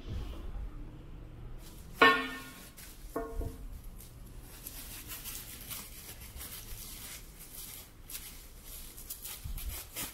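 Plastic bubble wrap crinkling and rustling as it is peeled off a ceramic Coca-Cola contour-bottle shaker. About two seconds in there is a sharp knock with a brief ringing tone, and a weaker one about a second later.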